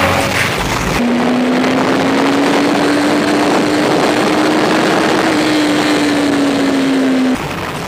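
Yamaha YZF-R1 inline-four sport bike heard onboard at high speed: wind rushing over the microphone, with the engine holding one high steady note that climbs slowly and then eases off a little. The sound cuts off suddenly near the end.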